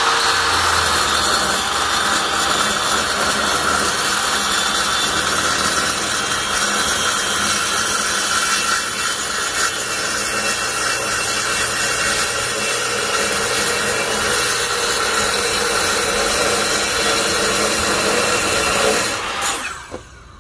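Miter saw with a 7¼-inch carbide-tooth metal-cutting blade cutting a miter through 2-inch square tubing with a quarter-inch wall: a loud, steady cutting noise that stops near the end as the saw winds down.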